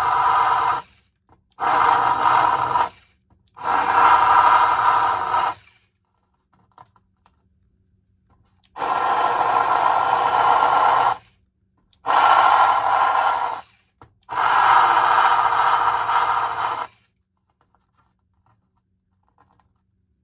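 Small power sander grinding into a plastic platform in six short bursts of one to two and a half seconds each, levelling out a flat seat for the crossing signal's base; it stops about three seconds before the end.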